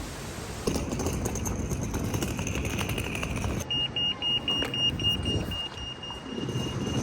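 Steady rumbling vehicle noise. From just past halfway, a rapid run of high electronic beeps, about five a second, goes over into a steadier high tone.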